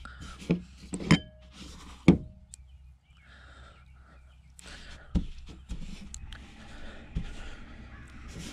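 Knocks and thumps of a hand pressing and patting fish fillets into a plastic plate of breadcrumbs on a plastic tabletop, with faint crumb rustling between. Three loud knocks come in the first two seconds, then smaller knocks a few seconds later.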